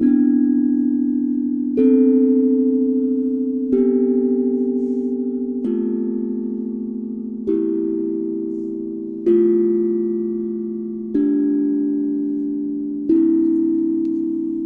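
Steel tongue drum struck with mallets, one note about every two seconds in a slow melody. Each note rings clearly and fades slowly into the next. The sound is clear and warm, with little background hiss.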